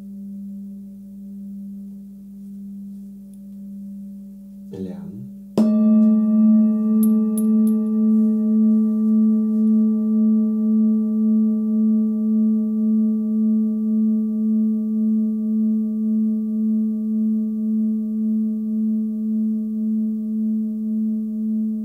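A hand-hammered Nepalese singing bowl rings with a slow wavering beat. After a brief rustle about five seconds in, another bowl, slightly higher in pitch, is struck. It rings out louder with several overtones and a steady pulsing wobble, fading only slowly.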